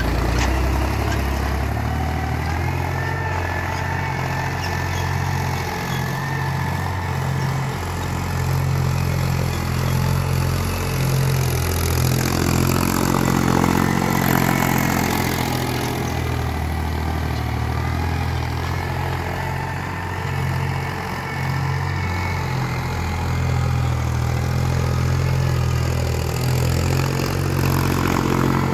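Mahindra diesel tractor engine running steadily while pulling a cultivator through dry soil, its note wavering a little as the load changes.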